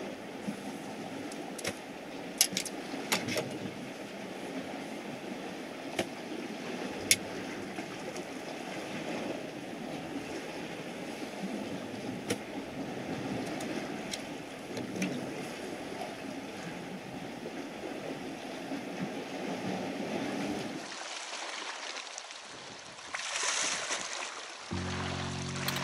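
Sea waves washing against a rocky shore as a steady wash of noise, with a few sharp clicks in the first seven seconds. About 21 seconds in the wash drops away, a short rush of water noise follows, and music with held notes starts just before the end.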